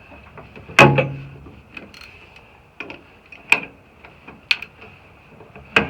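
Metal hand tools clinking and knocking: four sharp knocks spread over a few seconds, the loudest about a second in with a brief ring after it.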